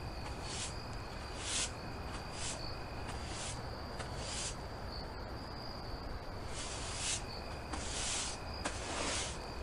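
Crickets chirping steadily in the background, with irregular short swishes of a broom being swept across a floor, most of them in the second half.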